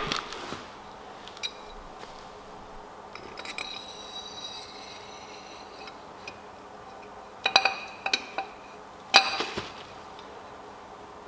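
Metal clinks and knocks from a steel tube drift being handled against the balance-shaft bore of a Saab B204 engine block. There is a short ringing clink a few seconds in, then a quick cluster of sharper knocks with a metallic ring about two thirds of the way through.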